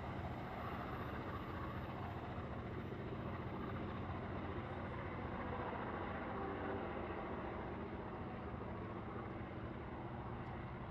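Heritage diesel locomotive engines running with a steady low drone as the train draws away, easing slightly near the end.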